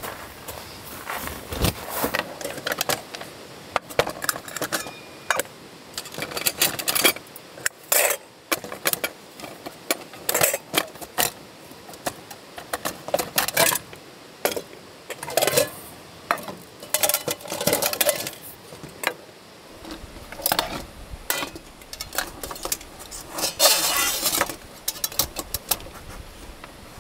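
Aluminium camping cookware clinking and clattering as nesting pots, a pan, a lid and a stove windscreen are unpacked and set down on a wooden table: many short separate clinks and knocks. A low rumble joins in about two-thirds of the way through.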